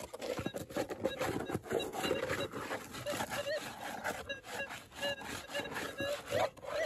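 Minelab Gold Monster metal detector giving short warbling target tones that rise and fall, a few times and stronger near the end, as the coil is swept over a buried target. Under them are scrapes and clicks of the coil brushing loose gravel.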